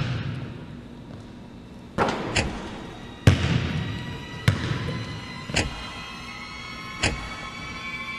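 A basketball bouncing on a gym floor, six single echoing bounces at uneven, lengthening intervals. From about halfway through, a held, slowly rising tone of music builds underneath.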